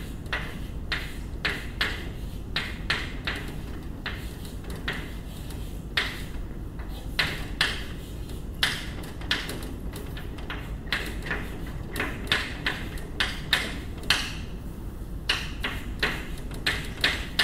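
Chalk writing on a blackboard: irregular short taps and scratches, several a second, as each stroke of a formula goes down, over a steady low room hum.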